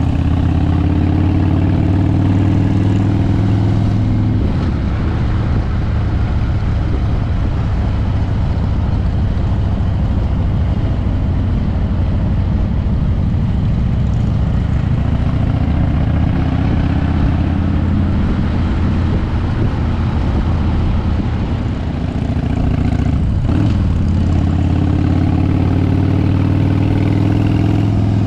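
Harley-Davidson V-twin motorcycle engine running under way, with wind rushing over the microphone. The engine note eases off briefly about four seconds in and again near twenty-two seconds, then picks up again.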